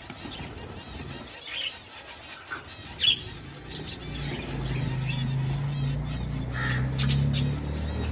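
Lovebirds chirping and twittering in rapid high-pitched calls, with a louder sharp chirp about three seconds in and another pair near the end. A low steady hum joins about halfway through.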